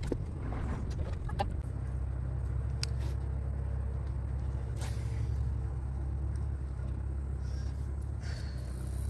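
Steady low rumble, with a few faint clicks and ticks over it.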